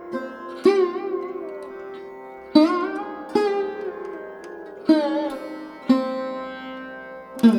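Background music: a sitar-like plucked string instrument playing slow, bending and wavering notes, one every second or two, over a steady drone.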